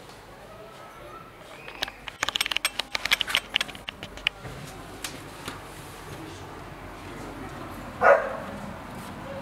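A rapid run of clicks and rattles for about two seconds as a curtain is pushed aside and a balcony door opened. About eight seconds in, a single short dog bark, the loudest sound here.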